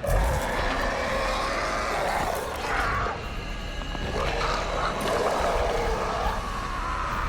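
Film Lycans (werewolves) roaring and howling together, a long wavering cry that starts abruptly, with music underneath.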